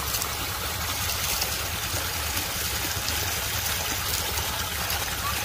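Steady stream of water gushing from a 2-inch PVC pipe outlet and splashing into the water already in a concrete storage tank, fed by a 2 HP solar-powered pump.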